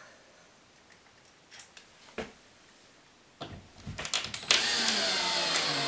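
A few light metallic clicks as an L bracket and screw are set against the wall. About four and a half seconds in, a cordless drill starts driving the screw through the bracket into a drywall anchor, its motor running steadily with the pitch sagging slightly under load.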